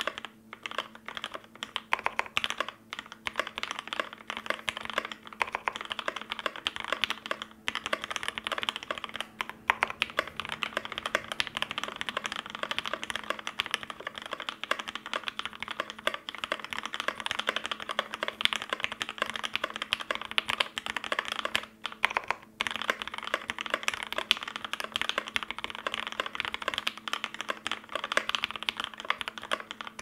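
Fast, continuous typing on a KBD75v3.1 mechanical keyboard with lubed Gateron Red Ink linear switches, an aluminium plate and GMK doubleshot ABS keycaps: a dense stream of keystroke clacks, with a few brief pauses.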